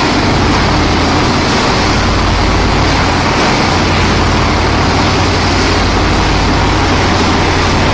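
Screw sand washing machine running steadily: the electric motor and reducer turning the spiral give an even low hum under a continuous wash of noise.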